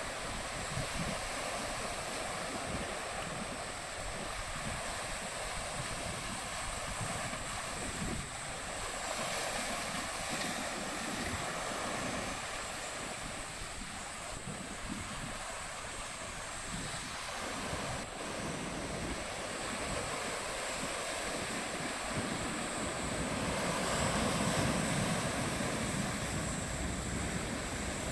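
Strong wind gusting across the microphone over the rush of sea waves, a steady noisy roar that swells somewhat about three-quarters of the way through.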